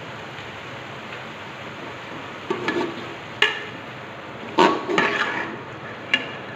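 Slotted metal spatula scraping and knocking against a metal pot as shredded vegetables and chicken are stir-fried, over a steady sizzle from the oil. The scrapes and knocks begin about two and a half seconds in and come several times.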